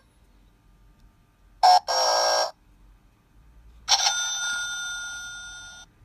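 Novelty sound-effects box playing two canned effects through its small speaker: a short electronic chime about two seconds in, then a ringing tone that starts suddenly about four seconds in and slowly fades over two seconds.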